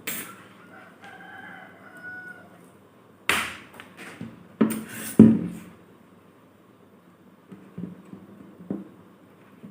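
A rooster crowing faintly in the background, followed by a few loud knocks and rustles, likely from the copper wire and iron rods being handled, and a couple of small clicks near the end.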